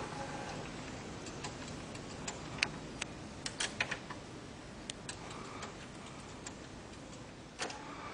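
Scattered light clicks and taps, irregular and close together in places, as a CD is handled and put into a disc player in an equipment rack, over a faint steady hiss.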